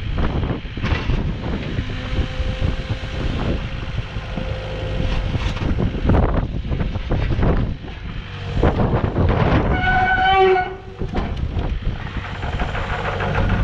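Kubota KX080-4 midi excavator working: its diesel engine runs under hydraulic load as the boom moves and the upper structure slews, with irregular knocks throughout. About ten seconds in, a brief pitched squeal lasting about a second rises over the engine.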